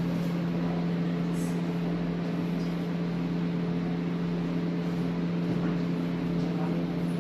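A steady machine hum: one low droning tone with fainter overtones above it, holding even throughout, with a brief faint hiss about a second and a half in.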